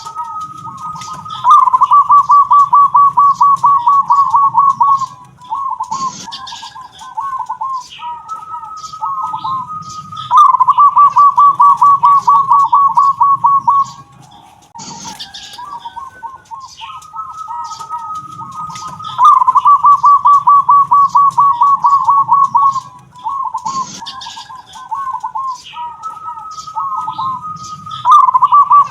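A zebra dove (perkutut) singing its cooing song over and over: each phrase is a steady note that breaks into a loud, rapid rolling trill, followed by softer broken coos, the phrase returning about every nine seconds. A few brief clicks fall between phrases.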